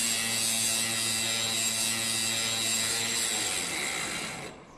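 Hand-held angle grinder running and grinding: a steady whine with a hissing grind that fades and stops near the end.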